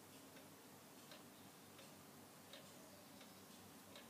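Hermle weight-driven pendulum wall clock ticking faintly and evenly, about six ticks from the escapement as the pendulum swings.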